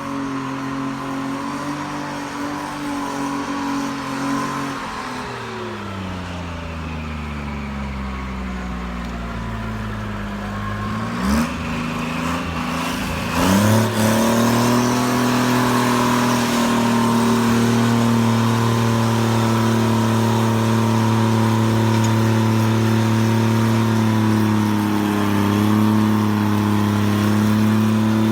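Heavy forestry machine's engine running, dropping in pitch for several seconds. Two sudden loud knocks follow, after which the engine runs steadily again, louder and at a higher pitch.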